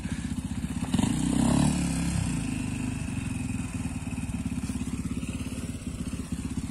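Dirt bike engine running with a steady low pulse, with a burst of revving about a second in that then settles back.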